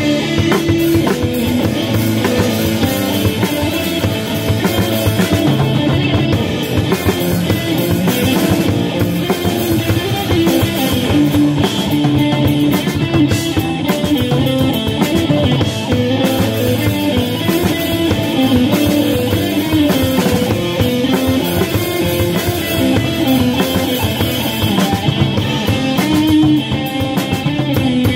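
Instrumental rock band playing live: electric guitar, bass guitar and drum kit playing together, the drums driving a steady beat under sustained distorted guitar chords.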